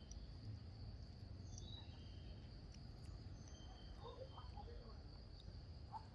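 Faint, steady high-pitched insect chorus over a low background rumble, with a few faint short calls.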